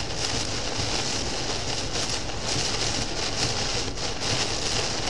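Torrential rain beating on the car's windshield and roof, heard from inside the moving car as a steady dense hiss with slight surges, over the car's low road rumble.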